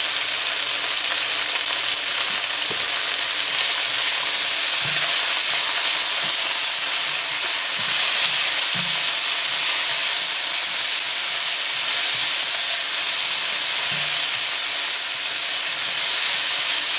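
Sliced onions, bell peppers and long beans sizzling steadily in hot oil in a non-stick frying pan, stirred with a silicone spatula that gives a few soft knocks and scrapes against the pan.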